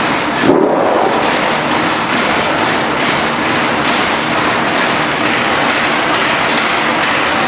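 Horizontal tandem compound steam mill engine running at speed, a steady mechanical clatter of rods, crosshead and valve gear, with a brief rising squeal about half a second in.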